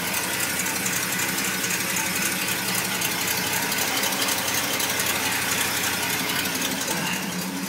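Oldsmobile 350 Rocket V8 idling steadily through Flowmaster exhaust, with a fast, even mechanical clatter. The owner says it doesn't sound too well: the right-side head gasket is leaking and the motor needs a rebuild.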